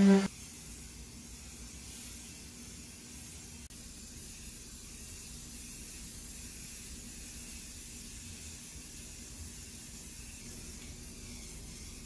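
An electric orbital sander's hum cuts off a fraction of a second in. Then an aerosol can of primer spraying: a steady, even hiss.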